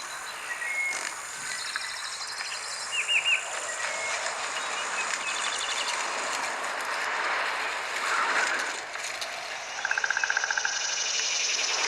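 ZTE Axon 7's front stereo speakers playing a video's soundtrack with Dolby Atmos switched on: a steady outdoor hiss with short high chirps and trills, and a fast pulsing trill about ten seconds in.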